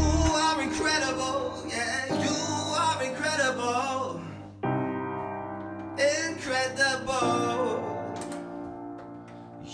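Live music: sustained piano-sound chords from an electronic keyboard, with a wordless sung melody over them. The low bass drops out just after the start.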